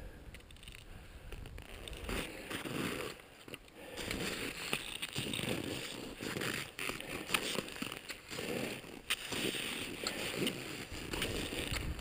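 Boots crunching and kicking steps into firm snow in a steady rhythm, about one step a second, while climbing a steep snow slope.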